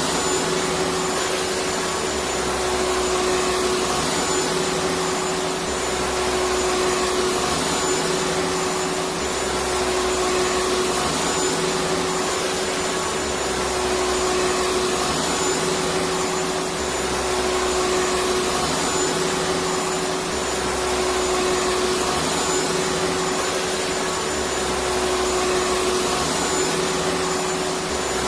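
Electric vacuum cleaner running steadily: a constant rushing noise with a steady hum, and a faint low throb that rises and falls about every two seconds.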